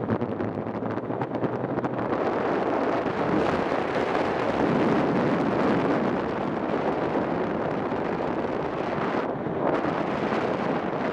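Wind rushing over the microphone of a camera carried by a paraglider pilot in flight: a steady, loud buffeting rush that eases briefly about nine seconds in.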